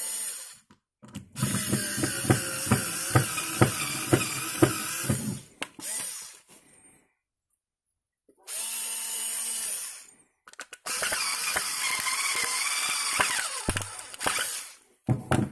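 Cordless drill boring holes into a wooden block in three runs: a long one with a regular knock about twice a second, a short one midway, and a longer one whose pitch dips briefly near the end.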